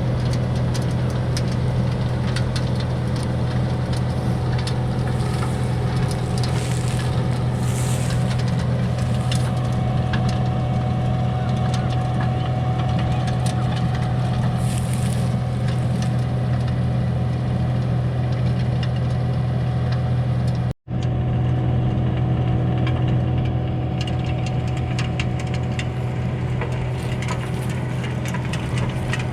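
Skid steer engine running steadily, driving a hydraulic rotary tiller working through hard-packed soil, with a strong low hum. It cuts out for a split second about three-quarters of the way through, then resumes as before.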